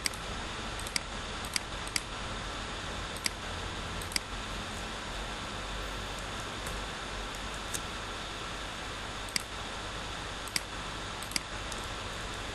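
Computer mouse clicking about nine times at irregular intervals, sharp single clicks as Photoshop path points and handles are picked and dragged, over a steady background hiss.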